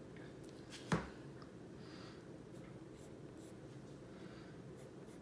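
Colored pencil scratching lightly on paper in shading strokes, with one sharp tap about a second in.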